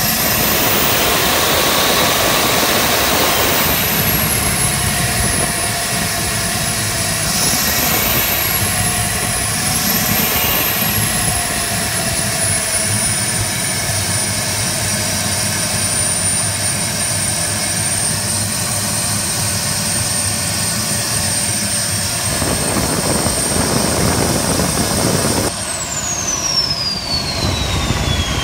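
Stuttgart Engineering STV 130 small turboprop engine running with a high turbine whine. The whine rises sharply as the throttle opens, rises briefly twice more with two throttle blips, then eases slowly. Near the end it winds down steadily, its pitch falling well below its earlier idle pitch.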